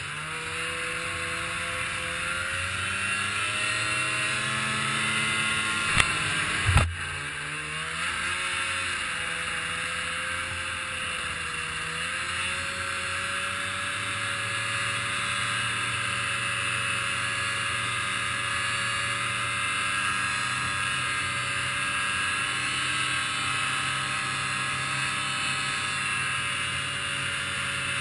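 Snowmobile engine running steadily along a trail, its pitch drifting up and down with speed. Two sharp knocks about six and seven seconds in are the loudest sounds.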